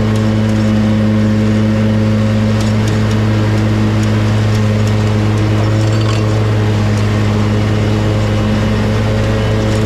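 Exmark Lazer Z zero-turn mower running steadily while mowing grass, a constant engine drone heard up close from on the machine.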